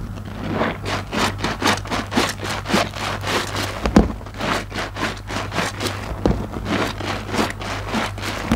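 Wet squelching and squishing of a soapy IKEA mesh loofah being squeezed and kneaded by hands in thick foam and suds, in quick strokes about two to three a second, with one louder squelch about four seconds in.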